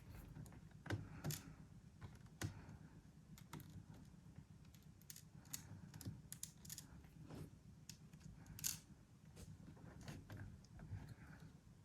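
Faint, irregular small clicks and taps of a screwdriver and a tiny M.2 screw being worked into place, with a little louder tick around the middle.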